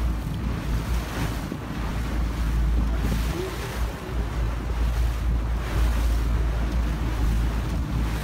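Wind buffeting the microphone over choppy water, with waves washing and splashing in irregular surges.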